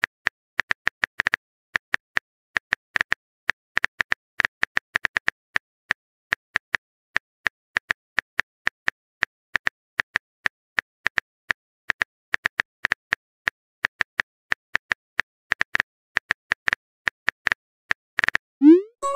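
Phone-keyboard typing sound effect: quick, uneven clicks, several a second, with a few short pauses.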